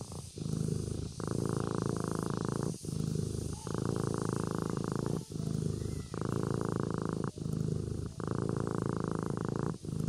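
Sleeping kitten purring steadily, the purr breaking briefly between breaths every second or so.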